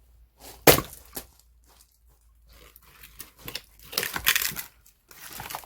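An axe splitting firewood: one sharp chop well under a second in, the loudest sound, then crunching and cracking of wood around four seconds in.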